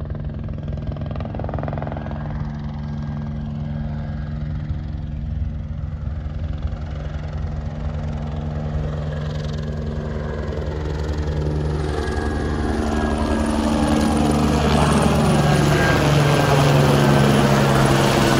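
Low-flying crop-spraying helicopter, a steady engine and rotor sound that grows louder in the second half as it comes in close overhead.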